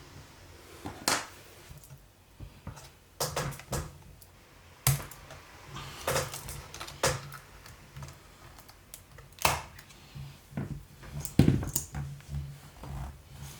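Irregular sharp clicks and taps of hands and small tools working on a laptop, a few seconds apart, with a louder cluster of knocks near the end.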